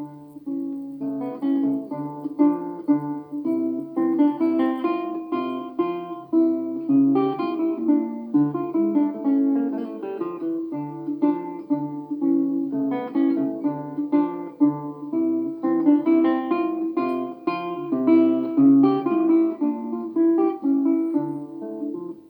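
Background music played on a plucked acoustic guitar, with quick picked notes over a low bass line in a steady rhythm; it fades out near the end.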